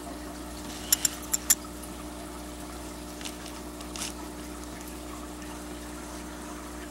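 Aquarium filter running: a steady trickle of water with a faint constant hum. A quick cluster of four sharp clicks about a second in, and two fainter ticks a couple of seconds later.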